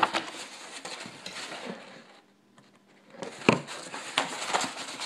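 Large paper poster being handled, rustling and crackling, with a short pause about two seconds in and a sharp tap about three and a half seconds in before the crackling picks up again.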